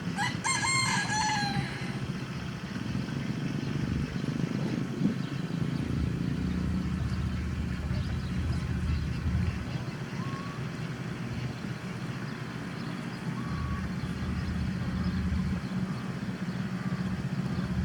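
A Leghorn rooster crows once in the first two seconds, the call dropping in pitch at its end. After that a steady low hum carries on, with a few faint chicken calls over it.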